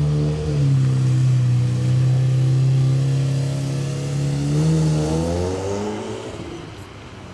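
Lamborghini Murciélago Roadster's V12 running at low speed as the car pulls away, with a brief rev about four and a half seconds in that rises and then drops. It fades into the distance near the end.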